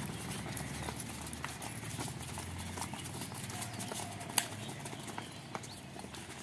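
Many sneakers' footfalls on paving, an irregular pattering of steps as a group of runners jogs in place lifting their knees, with one sharper click about four seconds in.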